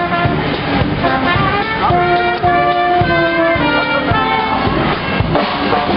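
Brass band playing a tune, horns holding notes over a drum beat.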